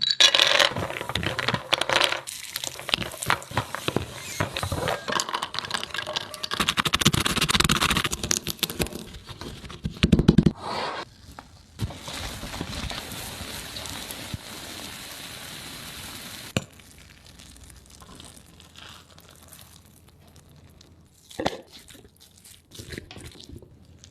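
Close-miked eating and handling noises: crackly scraping, crinkling and clicking, densest in the first half. A steady hiss runs for a few seconds past the middle and cuts off suddenly, followed by sparse soft clicks.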